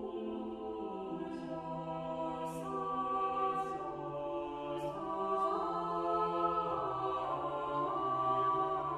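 Background music: a choir singing slow, held chords that shift gently from one to the next, with a few soft sibilant consonants in the first half.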